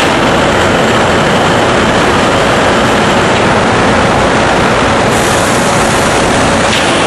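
CM565D bridge-type CNC machining center running: a loud, steady, dense mechanical noise with faint steady tones, its high hiss growing brighter about five seconds in.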